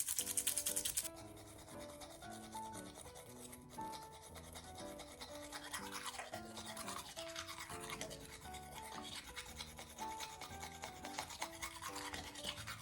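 Background music with a light melody of short notes, over the fast scratchy strokes of a toothbrush brushing a dog's teeth. The brushing is loudest for about the first second, then carries on faintly.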